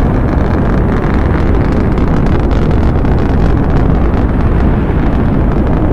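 Rocket-thrust sound effect: a loud, steady rushing rumble, heaviest in the low end, with no clear pitch.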